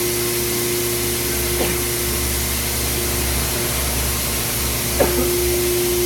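Steady whirring machine noise with a constant hum, from equipment running beside a CNC cutting table. A brief short sound breaks in about five seconds in.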